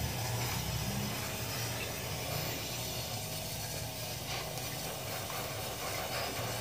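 Oxy-fuel gas welding torch burning with a steady hiss during gas welding of steel, over a low steady hum.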